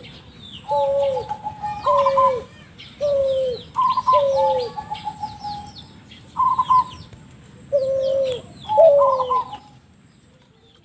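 Spotted dove (tekukur) cooing: a repeated series of short coos with a lower and a higher note, each bending downward in pitch, about one a second. Fainter high chirps from small birds sound behind, and the calling stops shortly before the end.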